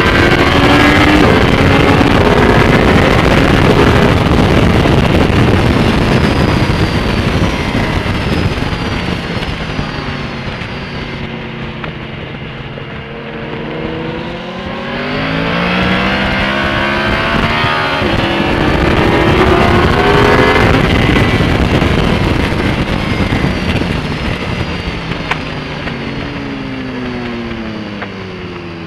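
Yamaha R1 crossplane-crank inline-four with Yoshimura carbon silencers and no catalytic converter, running at track speed under wind rush on the onboard microphone. Its pitch falls away as the bike slows, climbs hard through the middle with a brief break, then drops again near the end.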